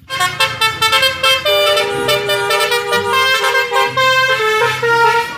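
Indonesian "telolet" bus horn, a multi-tone musical air horn, playing a tune: several horn tones sound together and step from note to note.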